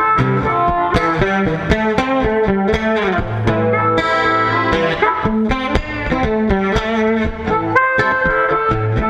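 Live blues band in an instrumental break, led by a guitar picking quick runs of single notes over the rhythm.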